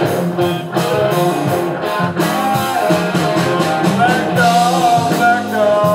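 Live blues-rock band playing an instrumental passage: electric and acoustic guitars over drums, with a lead line whose notes bend up and down a few times.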